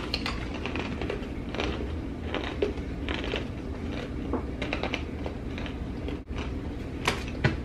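Hard sourdough pretzel pieces crunching as two people chew them, in irregular crisp crunches, with two sharper cracks near the end, over a steady low hum.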